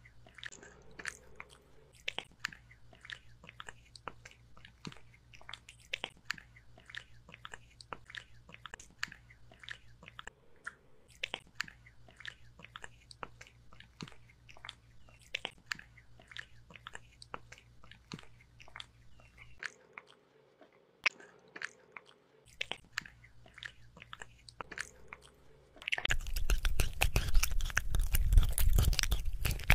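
A kitten's mouth close to the microphone: soft, scattered wet clicks for most of the stretch, then near the end loud, busy chewing and biting as it eats chopped cooked beef.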